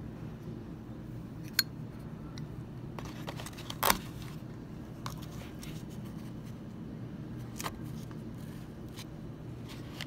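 Small clicks and knocks of metal Zippo lighters being handled and set into their display boxes, the loudest a knock about four seconds in, with a few lighter clicks before and after, over a steady low hum.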